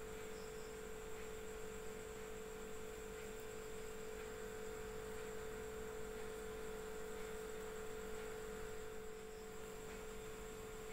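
Steady electrical hum, one unchanging tone over a faint hiss; no crochet hook or yarn sounds stand out.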